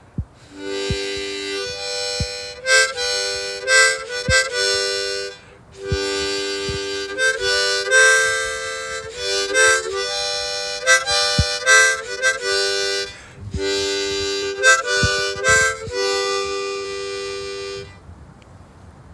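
A small harmonica played by mouth: a short tune of held chords and quick note changes in three phrases with brief breaks between, stopping about a second before the end.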